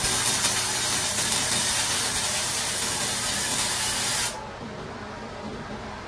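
Wire-feed welder arc crackling and sizzling steadily as a bead is laid on a steel Ford 9-inch axle housing, cutting off about four seconds in.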